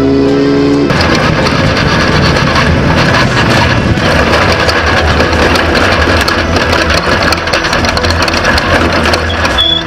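Off-road race vehicle's engine running hard at speed, a loud dense rough noise that cuts in about a second in after a short steady tone.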